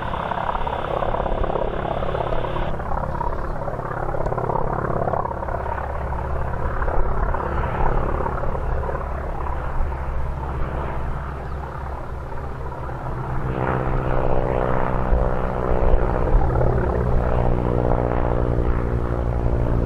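Noorduyn AT-16 Harvard's nine-cylinder Pratt & Whitney R-1340 Wasp radial engine and propeller running in flight overhead. A rough, even drone for the first part turns, about two-thirds of the way in, into a louder, steady pitched hum as the aircraft comes closer.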